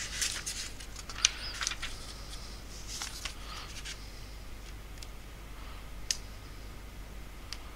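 Light rustling and scattered sharp clicks from small objects being handled at a desk, busiest in the first couple of seconds, then single clicks about three, six and seven and a half seconds in, over a low steady hum.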